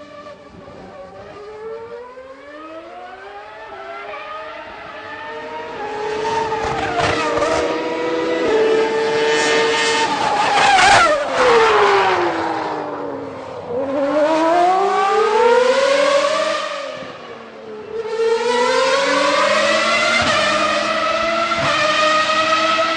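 Old V12 Formula One engine accelerating hard, its pitch climbing in steps through the gears. Around the middle the pitch drops steeply and the sound fades, then it climbs again, dips once more and rises near the end.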